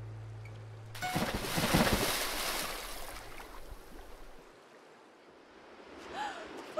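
A loud, sudden splash of people plunging into a river about a second in, with churning water that dies away over a few seconds.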